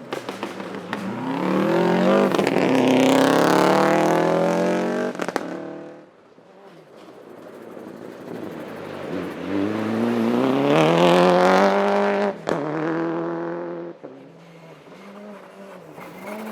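Rally car engines at full throttle, twice: the first climbs in pitch over about four seconds and cuts off abruptly. The second rises to a peak, gives a sharp crack about twelve and a half seconds in, and then fades away.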